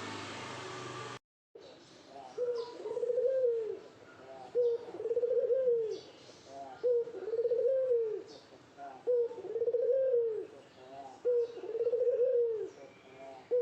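Male puter dove cooing to court a female. A short note leads into a longer coo that rises and falls in pitch, repeated steadily about every two seconds, five or six times. The first second holds a different, noisy sound that cuts off abruptly.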